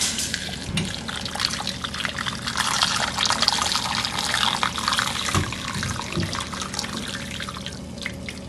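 Hot, just-boiled water pouring in a steady stream into a glass Pyrex dish, splashing over a glass spoon pipe as the dish fills; the pour eases off near the end.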